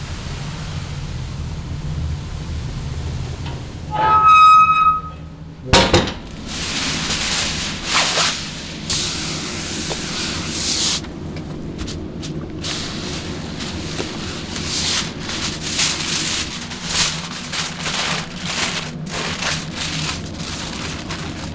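Background music over kitchen cooking sounds: a loud knock about six seconds in, then repeated hissing bursts.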